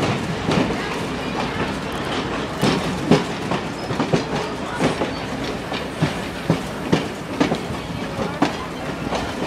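Passenger train cars rolling along, with a steady rumble and the wheels clacking over rail joints about once a second.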